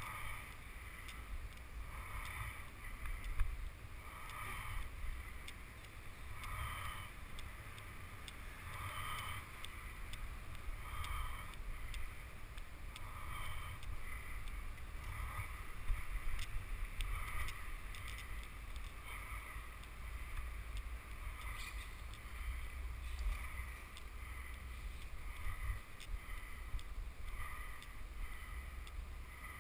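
Bicycle ride over rough, cracked asphalt: a steady low rumble of wind on the bike-mounted camera's microphone and of tyre noise, with a faint pitched squeak that recurs about every second or two.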